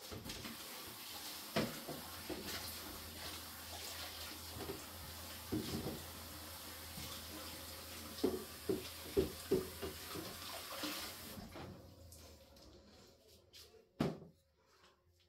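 A cloth bag of wet ground corn and millet paste being squeezed and kneaded by hand, liquid running out of it into a plastic basin with several wet squelches; the running stops about eleven seconds in. This is the straining stage of making pap, pressing the water out of the fermented paste.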